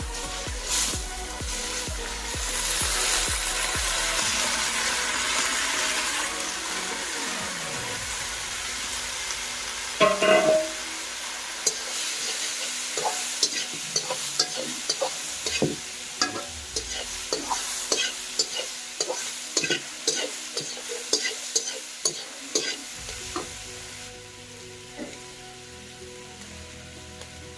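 Food sizzling in a frying pan as it is stirred. A loud clatter comes about ten seconds in, then a utensil knocks and scrapes against the pan in quick taps for about ten seconds. The sizzle dies down near the end.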